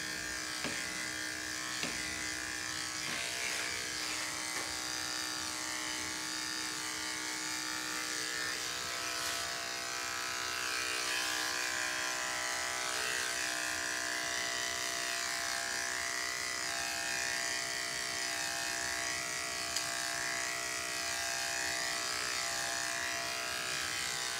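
Corded electric pet clippers running with a steady buzz as they shear a dog's long coat.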